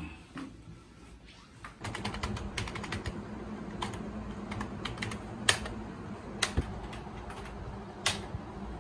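Typing on a laptop keyboard: a run of key clicks starting about two seconds in, with a few sharper, louder keystrokes near the middle and end, over a low steady hum.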